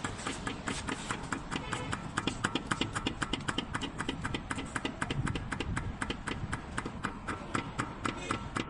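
Worn inner tie rod on a Hyundai Tucson clunking in a fast, even rhythm of about six knocks a second, with a faint metallic ring to each knock: the sign of a worn, loose tie rod joint.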